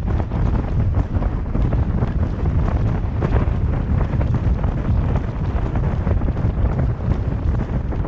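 Wind buffeting the microphone of a camera on a car moving at highway speed: a steady, loud, low rumble with no breaks.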